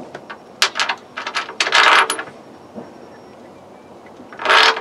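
A stainless steel bolt clicking and scraping against the steel deck as it is fed through a freshly drilled hole to test the fit. There is a string of short metallic clicks and a couple of brief scrapes, then a louder rasp near the end.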